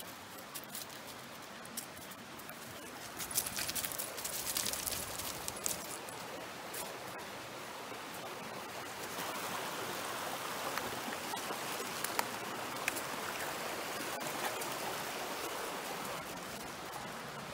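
Mountain stream water running steadily over rocks, with a cluster of sharp clicking and crackling from about three to six seconds in and a few single clicks later.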